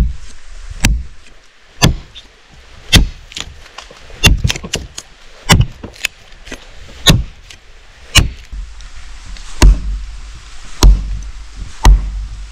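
A wooden post being chopped, one sharp blow about every second, with a few blows coming in quick pairs.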